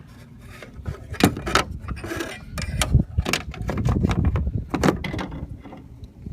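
Several sharp clicks and knocks over a low rumble, as the door-handle parts are handled.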